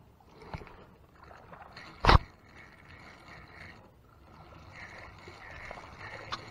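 Spinning reel being cranked to retrieve line, the handle and gearing whirring softly. One loud sharp knock comes about two seconds in, with fainter clicks near the start and end.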